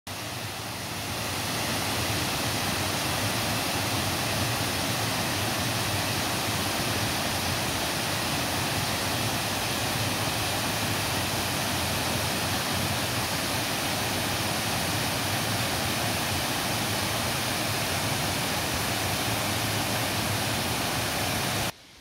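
Waterfall rushing: a steady, loud roar of falling water that fades in over the first two seconds and cuts off suddenly near the end.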